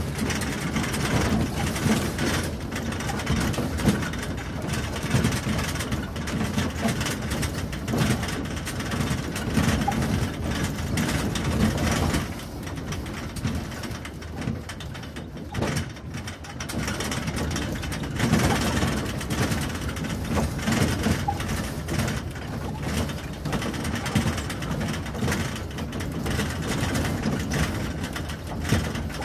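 Riding in the cargo bed of a moving ATV: the engine runs under a continuous rattle and clatter from the bed jolting over rough off-road ground. The sound eases off for a few seconds about halfway through, then picks up again.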